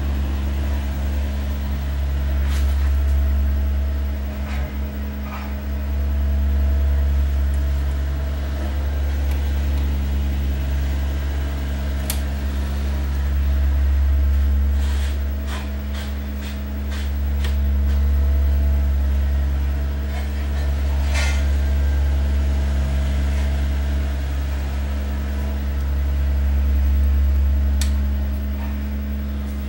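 Steady low electrical hum from mains-powered bench equipment, slowly swelling and fading every few seconds. Scattered small clicks and taps come from pliers and fingers working a replacement capacitor into the TV's circuit board.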